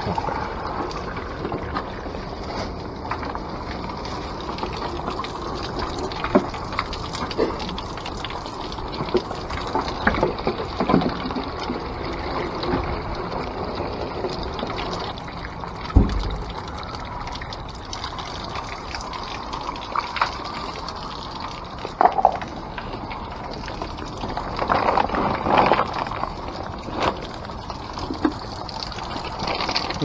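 Spring water running through a plastic funnel into a plastic jug as it fills, with scattered knocks of the jugs and funnel being handled, the loudest a thump about halfway through.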